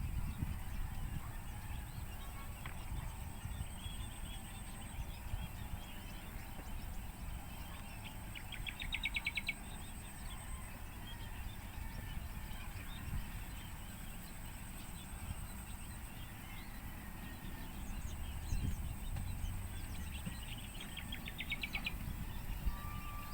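Maya birds (Eurasian tree sparrows) chirping, with two short, rapid chattering trills, one about nine seconds in and one near the end. A steady low rumble underlies them.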